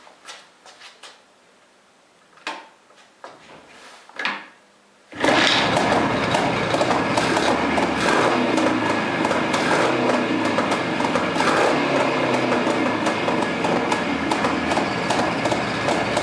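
A few faint knocks, then about five seconds in a motorcycle engine comes in suddenly and runs steadily, loud and fast-pulsing.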